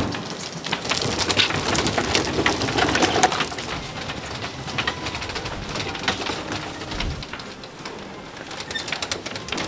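Food sizzling and bubbling as it cooks at a street-food stall, a rain-like crackle with many scattered clicks and clatter of utensils throughout.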